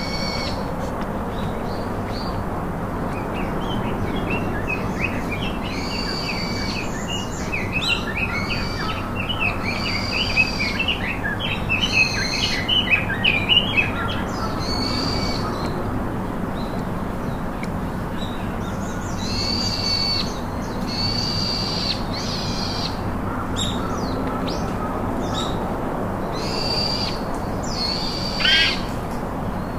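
Wild birds calling over a steady outdoor background hiss: a run of quick high chirps in the first half, repeated high calls of about a second each throughout, and one loud rising call near the end.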